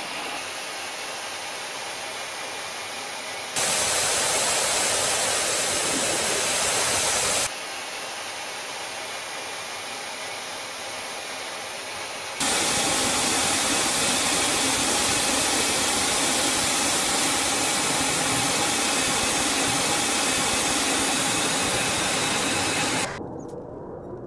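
Steady jet aircraft engine noise, an even hiss-like rush that steps louder and quieter several times as the shots change. About a second before the end it drops to a quieter, duller rumble.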